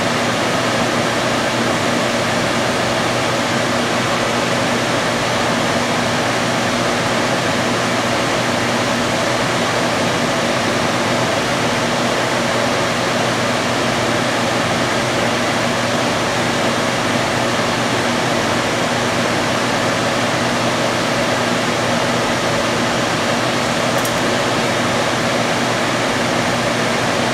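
Lampworking bench torch burning with a steady rushing hiss, over a faint low hum.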